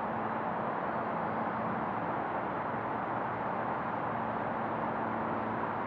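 Boeing 737-800's CFM56-7B jet engines at taxi idle: a steady rushing noise with a faint low hum underneath.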